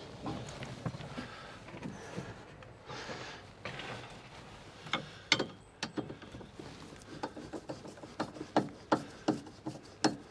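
Spanner work on the bolts of a tractor cab monitor mount: metal scraping and rubbing, then a run of sharp irregular clicks and knocks in the second half.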